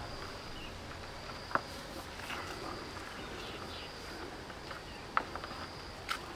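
Rural outdoor ambience under a tree: a faint, high, on-and-off insect drone, with a few sharp clicks or snaps, one about a second and a half in and another about five seconds in.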